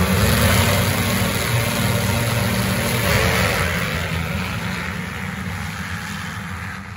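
A full starting gate of motocross bikes running hard together, then launching off the line as one pack; the engine noise fades steadily from about four seconds in as the pack rides away.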